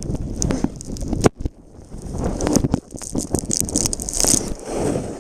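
Snowboard edges scraping and chattering over packed snow at race speed, with wind buffeting the camera's microphone. Scattered sharp knocks, a brief lull about a second in, and a loud hissing carve a little before the end.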